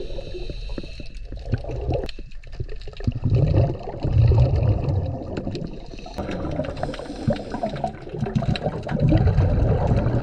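Scuba regulator breathing heard underwater: exhaled bubbles gurgle out in low, rumbling bursts a few seconds apart, with quieter pauses between breaths and a scatter of sharp clicks throughout.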